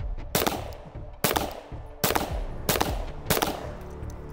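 A pistol fired five times at a steady slow-fire pace, a little under a second between shots, each shot sharp with a short ringing tail.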